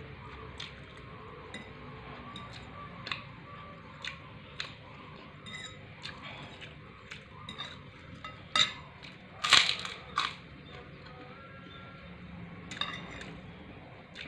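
Metal cutlery clinking now and then against a plate or bowl, with a louder clatter about nine and a half seconds in.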